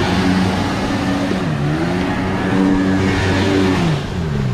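Sea-Doo Rotax two-stroke engine driving a mini jet jon boat hard, its pitch falling and climbing again about a second and a half in and once more near the end as the boat turns and throttles, over rushing water spray.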